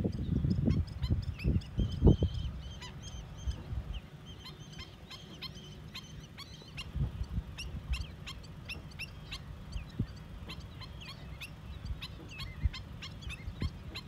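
A flock of waterbirds calling at once: a steady stream of many short, high calls, overlapping throughout. Low rumbling thumps sit underneath, loudest in the first two seconds.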